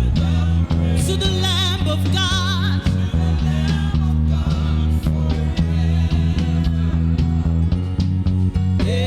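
Worship band music with bass guitar and guitar prominent, with a wavering melody line with vibrato from about one to two and a half seconds in.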